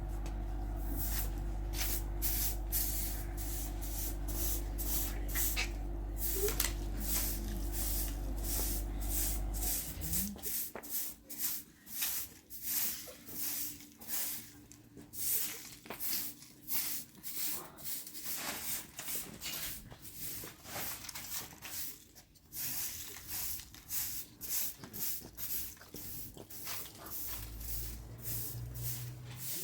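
A steady low motor hum runs and then stops about ten seconds in. After it comes a long run of short, noisy strokes, about one or two a second, uneven in spacing and loudness.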